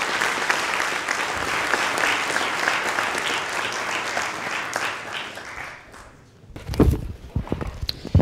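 Audience applauding, the clapping dying away about six seconds in; then a few low thumps near the end.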